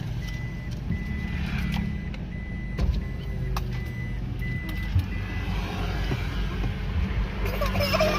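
Car engine running as the car creeps forward, heard from inside the cabin, with a high electronic beep that comes and goes irregularly, typical of a parking sensor, and a few light knocks.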